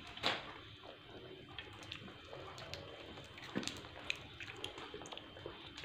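Faint scattered clicks and soft wet sounds of hands scooping and squeezing kabsa rice on a shared enamel plate, with two louder knocks.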